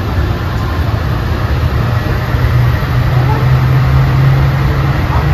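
Dubai Metro train running, heard from inside the carriage: a steady rumble with a low hum that grows louder about three seconds in.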